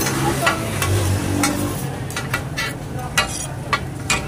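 Metal spatula and knife clinking and scraping on a large flat steel griddle (tawa), about ten sharp irregular strikes over the steady sizzle of meat frying.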